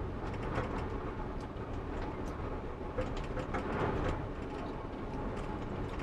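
A vehicle driving along a road: a steady low rumble of engine and tyres, with scattered light knocks.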